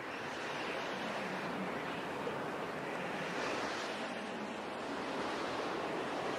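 Steady rushing outdoor ambience: an even hiss with no distinct events.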